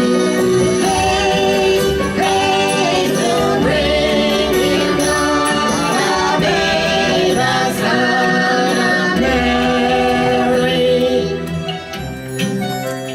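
Music with a choir singing a song over instrumental backing; the music drops in level near the end.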